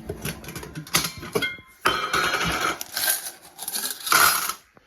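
Metal clinks and clattering with rough scraping, as a pan and the Kelly Kettle's hobo stove are handled.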